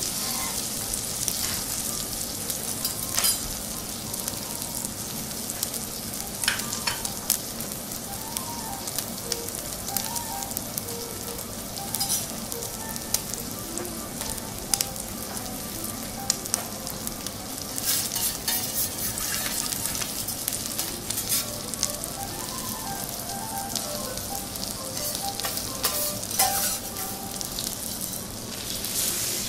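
Akita beef fillet steak searing on a teppanyaki griddle in melted butter and its own juices: a steady hissing sizzle with scattered sharp clicks and pops.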